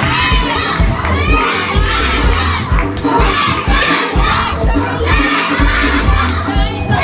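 A crowd of children shouting and cheering over loud dance music with a steady, thudding beat.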